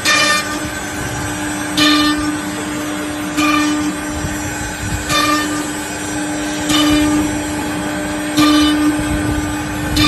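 CNC router spindle running with a steady high whine, with a harsher cutting burst about every second and a half to two seconds as the bit works the wood.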